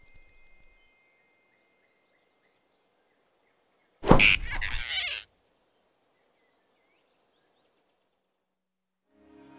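A single sudden loud sound effect about four seconds in, lasting just over a second and dying away, between stretches of faint soundtrack ambience.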